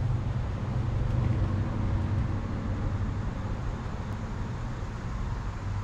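Steady low hum of a vehicle engine running, over an even outdoor hiss.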